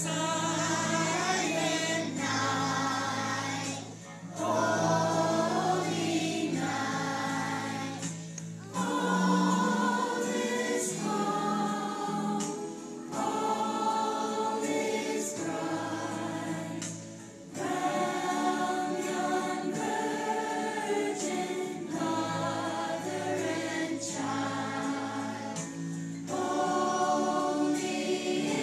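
Children's choir singing a Christmas song in phrases, with short breaks between lines, over a steady low accompaniment.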